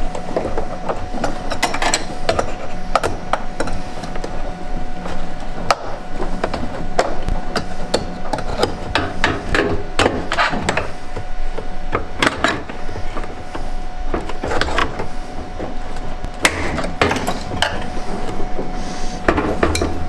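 Screwdriver and pliers scraping and clicking against the metal flange and rubber seal of a washing machine heating element, prying to work a stuck element loose from the tub. Irregular clicks, knocks and scrapes.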